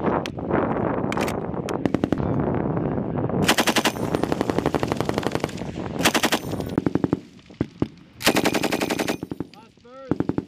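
M240B 7.62 mm belt-fed machine guns firing on full auto. At first the fire overlaps into an almost continuous stream, then it breaks into separate bursts of rapid shots, each under a second long, with short pauses between.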